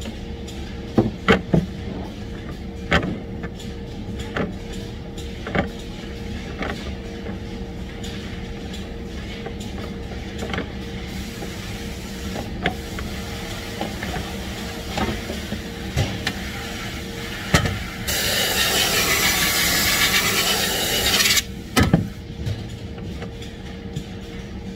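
Rubber hoses knocking and clacking against a jig over a steady factory hum; about three-quarters of the way through, a blast of compressed air hisses for about three seconds, followed by a couple of sharp clacks.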